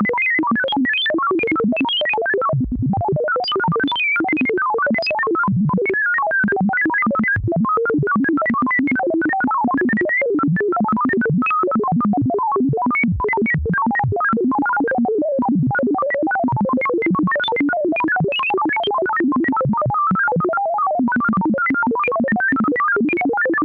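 Synthesized computer-calculation sound effect: a rapid, unbroken stream of short electronic beeps jumping at random between high and low pitches, like a retro computer processing data.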